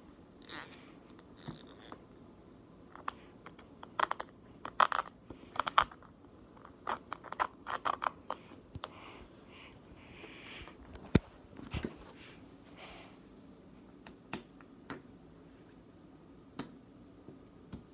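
Slime being pressed and poked with fingers in a plastic tub, making irregular sticky clicks and small pops, thickest about four to eight seconds in, with one sharp click a little past the middle.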